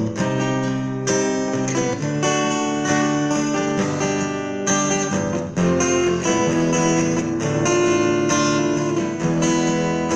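Acoustic guitar playing chords, with no singing.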